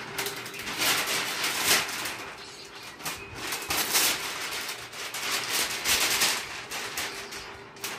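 A nature relaxation soundtrack playing through a TV's speakers: bird calls over repeated swells of hiss-like noise, each about a second long.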